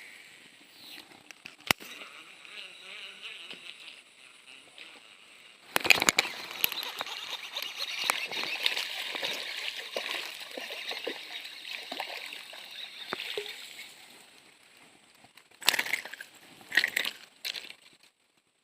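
Water splashing and sloshing. A sudden loud splash about six seconds in is followed by some eight seconds of continuous splashing, then two short splashes near the end.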